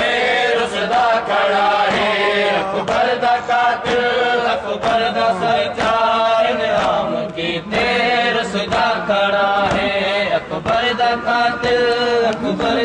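Men chanting a noha (Shia lament) together in short, repeated phrases, over a steady rhythm of sharp hand slaps typical of matam chest-beating.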